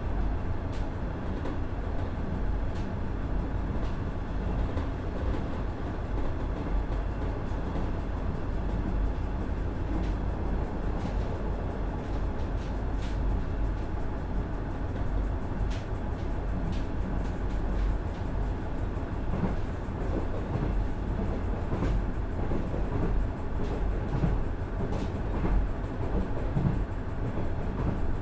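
Inside a KiHa 110 series diesel railcar on the move: a steady low rumble from its Cummins DMF14HZA engine and the wheels on the rails, with occasional faint clicks at irregular intervals.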